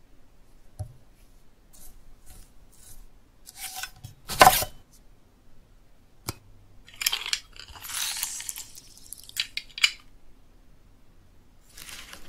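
Kitchen foley: a loud crunching knock about four seconds in, a single click, then a crunching squeeze from a metal hand citrus press lasting about a second and a half, followed by a few quick light clicks.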